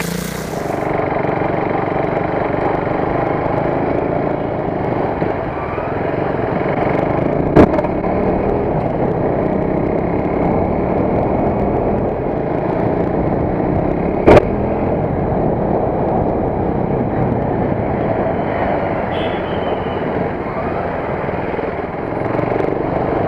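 KTM RC 390 single-cylinder motorcycle running with a steady mechanical noise, the bike's chain noise problem. Two sharp, loud knocks cut through, about seven and a half seconds in and again about fourteen seconds in.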